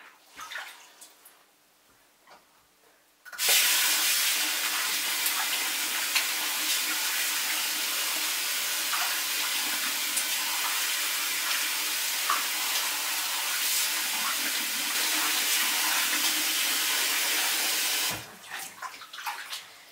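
Kitchen mixer tap running into a stainless steel sink of soaking fabric: a steady pour of water that is turned on about three seconds in and shut off a couple of seconds before the end.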